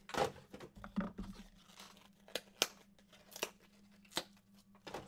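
Trading card pack wrapper being torn open and handled: a string of short sharp rips, crinkles and clicks, several times over.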